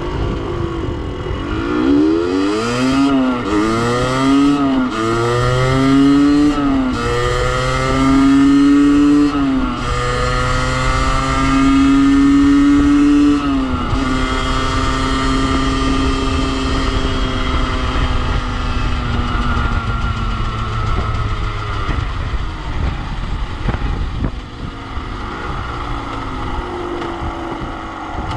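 Beta RR50's 50cc two-stroke engine, with its rev limiter cut out, accelerating hard through the gears: the pitch climbs and drops back with each of about five upshifts, then holds steady at speed before easing off in the last few seconds. Wind rushes over the microphone.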